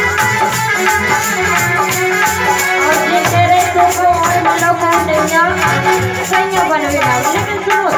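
Harmonium playing a melody over a steady, shaker-like rattling beat, with a woman's singing voice coming in about three seconds in.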